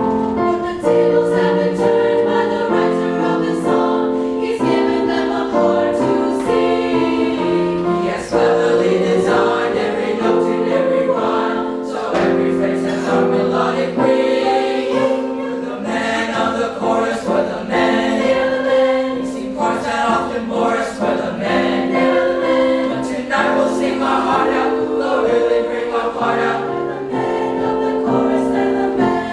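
Middle school chamber choir singing in harmony, holding chords that shift every second or so.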